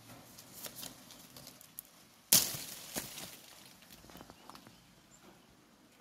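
Lemon-tree leaves and twigs rustling and crackling as a misshapen lemon is pulled off the branch. There is a sudden loud snap a little over two seconds in, a second click about half a second later, then rustling that dies away.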